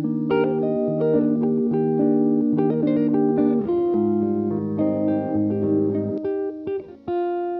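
Background music played on guitar, with plucked notes over a sustained bass line.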